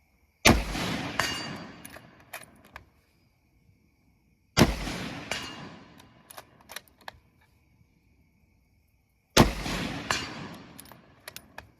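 Three rifle bullet strikes on an 8-inch AR500 steel gong, about four to five seconds apart. Each is a sharp metallic hit that rings out for about two seconds, followed by a few smaller clanks.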